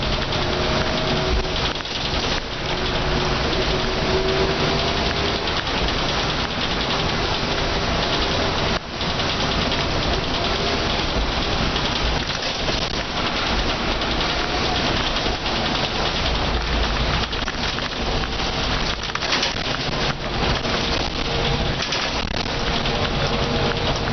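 Cab-end interior sound of a Mercedes O405N bus under way on a wet road: a steady hiss of tyres on wet tarmac and rain. Underneath it, a faint whine from the diesel engine and ZF automatic gearbox shows near the start and again near the end.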